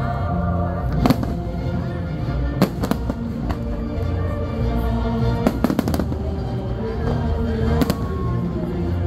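Aerial fireworks shells bursting, with sharp bangs every second or two, some in quick pairs, over music playing steadily underneath.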